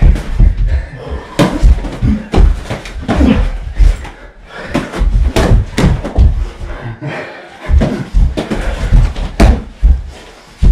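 Boxing gloves landing punches during a sparring exchange: a rapid, irregular run of heavy thuds and slaps.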